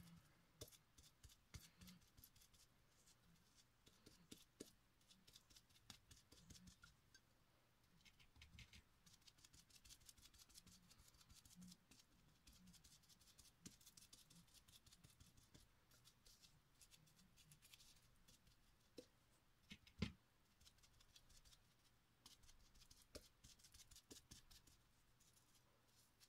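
Near silence with faint, scattered soft taps and scratches of a foam sponge dauber dabbing paint onto a glass vase, and one louder knock about twenty seconds in.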